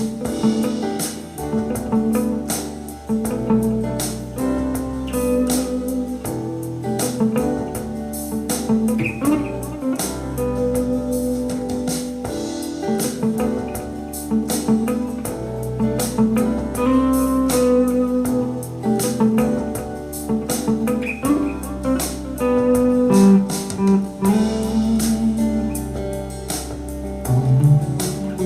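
Guitar playing over a backing track with a steady drum beat.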